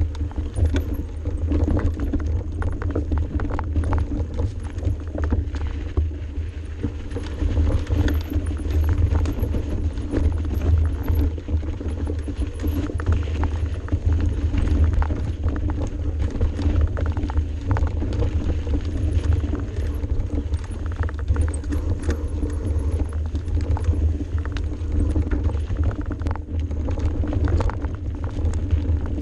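Mountain bike descending a steep dirt singletrack at speed: a continuous low rumble from wind and the ride on the microphone, with frequent rattling knocks from the bike over rough ground.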